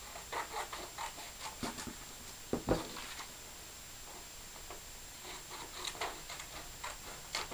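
Scissors cutting a sheet of paper: a run of short, crisp snips in two spells, with one louder thump about two and a half seconds in.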